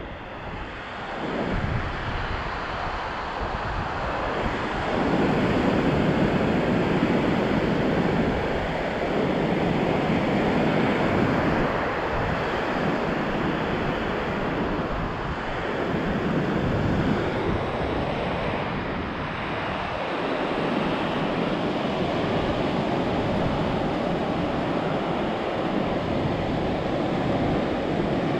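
Ocean surf breaking and washing up a sandy beach, a steady rush that swells and eases every few seconds, with wind buffeting the microphone.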